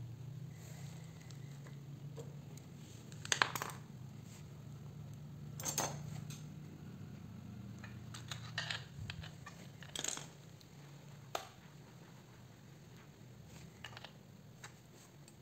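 Small metal hand tools clicking, tapping and scraping on a dismantled chainsaw's metal crankcase, with a handful of sharp taps spread through, the loudest a few seconds in. A low steady hum underneath fades out about halfway.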